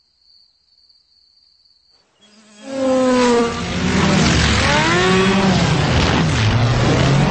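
Near silence with a faint thin high tone, then about two and a half seconds in a loud cartoon fly-by of a speeding ladybug: an insect-wing buzz mixed with a racing-car engine, its pitch dropping as it passes and then rising and falling like revving.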